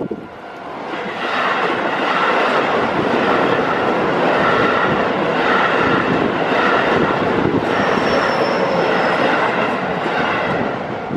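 Keio Line electric train passing over a level crossing: steady loud running and wheel noise building up about a second in, with the crossing's warning bell ringing in regular repeated strokes under it and a brief high squeal about eight seconds in.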